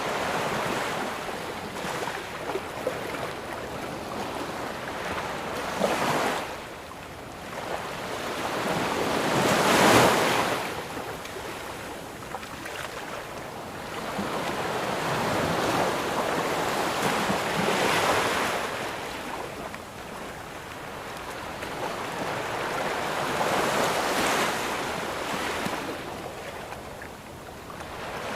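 Ocean waves breaking and washing up on a sandy beach, the surf swelling and ebbing every few seconds, with the loudest break about ten seconds in.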